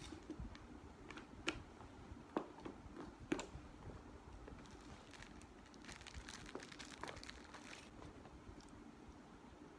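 Faint handling of bags being packed: three light clicks in the first few seconds, then soft rustling of fabric and leather from about six seconds in.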